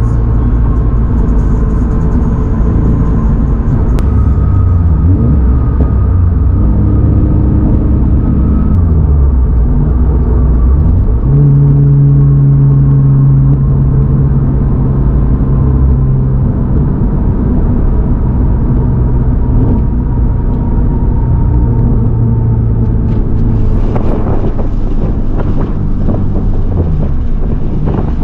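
2022 Subaru BRZ's 2.4-litre flat-four engine, fitted with aftermarket headers, running at moderate revs while driving. Its pitch holds steady in stretches and shifts up and down in steps several times. A few short knocks come near the end.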